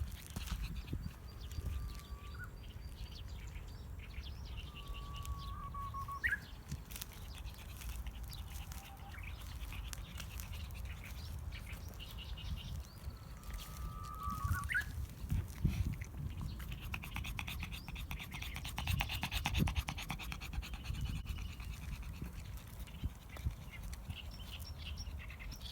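Japanese bush warbler singing at a distance: a held whistled note that ends in a quick upward flourish, about three times, with other small birds chirping. Underneath, a low wind rumble on the microphone and a dog panting.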